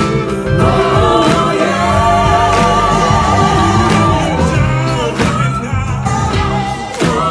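A vocal ensemble singing together through microphones over musical accompaniment, several voices holding long wavering notes.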